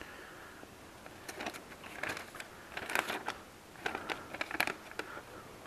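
Paper rustling as a folded instruction sheet is handled and opened: light, crackly rustles in a few short bursts.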